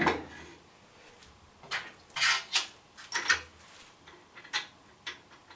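Handling sounds of a homemade wooden featherboard: a few light wooden knocks and a short scrape as it is laid onto its wooden holder, and small metal clicks as a washer and wing nut go onto the holder's bolt.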